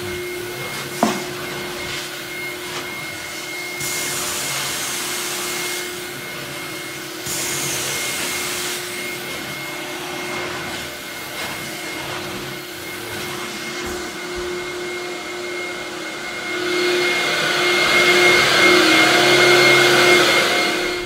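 Carpet extraction machine's vacuum motors running with a steady whine as the cleaning wand is drawn across wet carpet, sucking up the water; a click about a second in, and the suction grows louder near the end.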